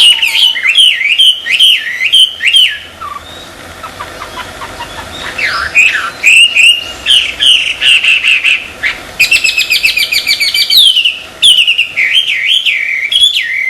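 A songbird singing loud, quick whistled phrases that sweep up and down. There is a softer gap about three seconds in, and a fast rattling trill around nine to eleven seconds in.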